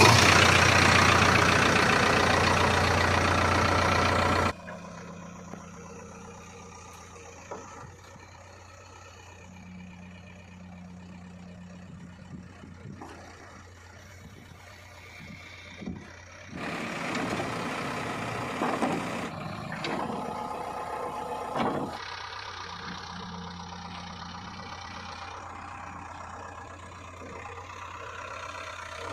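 Diesel engines of a backhoe loader and farm tractors running. Loud for the first four seconds or so, then quieter and steady, with a couple of louder spells in the second half.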